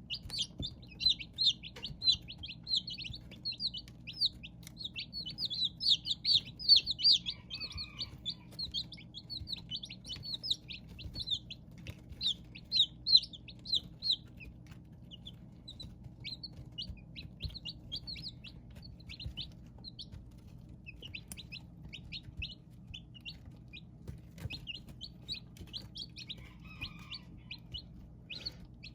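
Several newly hatched chicks peeping: quick, high, repeated cheeps that come thick and loud for about the first fourteen seconds, then thinner and more scattered, over a steady low hum.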